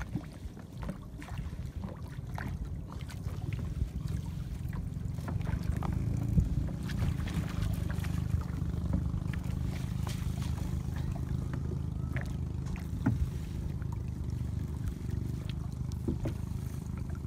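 Water sloshing and splashing in short irregular bursts as a hooped funnel trap net is hauled up out of shallow lake water and handled against the side of a small boat, over a steady low rumble.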